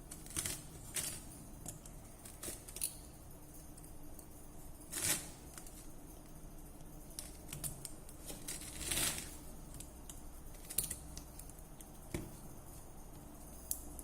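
Small irregular clicks and taps of hand tools and plastic phone parts being handled, with two short scrapes about five and nine seconds in.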